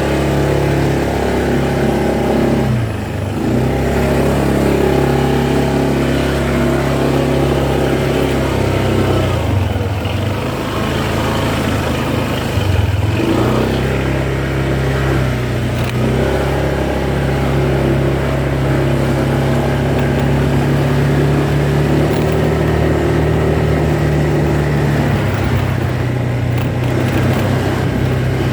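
Car engine running under way, a steady drone whose pitch dips and picks up again a few times. The car has an odd noise that is put down to a slack fan belt.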